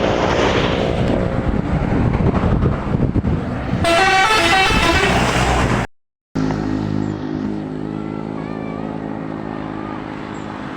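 Bus engine running loud as the bus goes by, then about four seconds in a multi-tone telolet horn plays a short stepping melody for about two seconds. The sound cuts out briefly and gives way to a steady engine drone.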